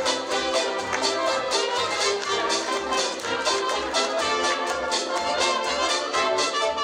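A 1920s-style hot jazz band playing live, the trumpets, trombone and saxophones carrying the tune over piano, string bass and drums with a steady beat.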